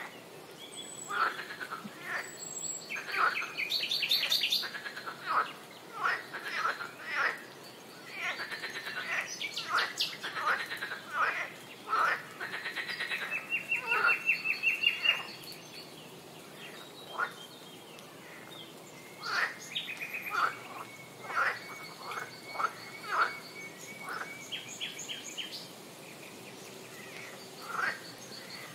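Swamp wildlife ambience: frogs and birds calling, many short calls coming irregularly. A rapid pulsing trill runs about halfway through, and a long high held trill comes later.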